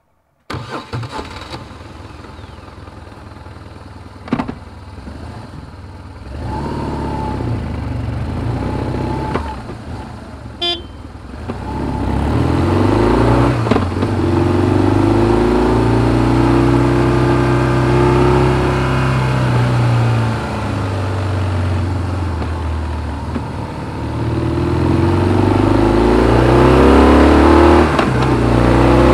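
BMW R1200GS boxer twin on its stock exhaust, idling, then pulling away and accelerating through the gears. The revs rise and drop back at each shift, and the engine grows louder as speed builds. A sharp click comes about four seconds in.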